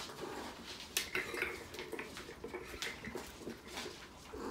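Kittens playing with small ball toys: scattered light taps, clicks and clatter of paws and toys on a mat and wooden floor.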